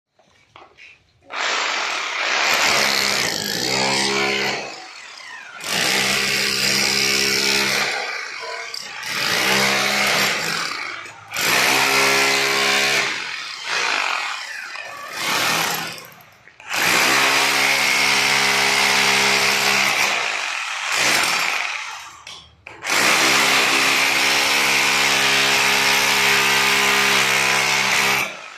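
Electric angle grinder grinding metal in repeated bursts of a few seconds, with short dips between them and a long final run of about five seconds.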